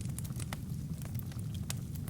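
Wood fire crackling: scattered sharp pops and snaps from burning wood and kindling over a steady low rumble of flames.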